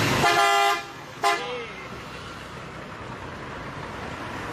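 Bus horn sounded in a steady blast of about half a second, then a second brief toot about a second in. After that there is only low background noise.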